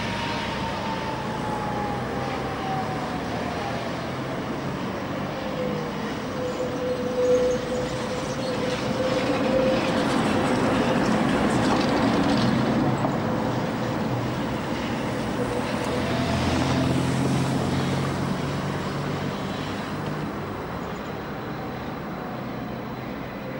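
Tatra T3 tram running on street track: a whine that falls in pitch over the first few seconds and then holds steady, over the rumble of wheels on rails. The rumble grows loudest about halfway through as the tram goes by, then eases.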